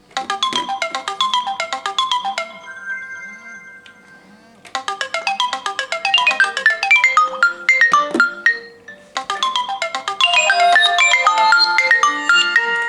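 Smartphone ringtones and alarm melodies, from a Samsung Galaxy S4 mini and other phones, playing over one another as quick marimba-like chiming notes. The melody thins to a few quieter held tones for about two seconds early on and dips again briefly past the middle.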